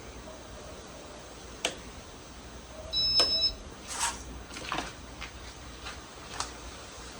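Casablanca Spirit of Saturn ceiling fan running with a steady low hum, with scattered sharp clicks and a short high two-tone beep about three seconds in.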